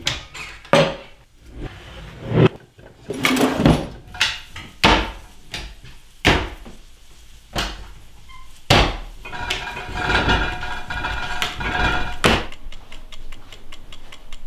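Drawers and cupboard doors of an old wooden kitchen dresser being opened and shut: a string of sharp wooden knocks and bangs. About nine seconds in comes a longer grating sound with a held tone, lasting about three seconds and cut off by a bang.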